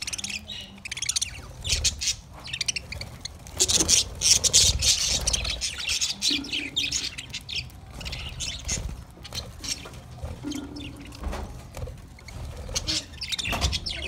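A flock of budgerigars chattering, with quick overlapping high chirps and warbles throughout, busiest about four to six seconds in.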